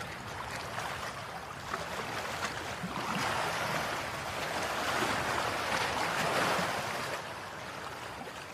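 A soft rushing, rustling noise with faint ticks, growing louder for a few seconds in the middle and easing off near the end: handling noise from a hand turning a plastic model boat close to the microphone.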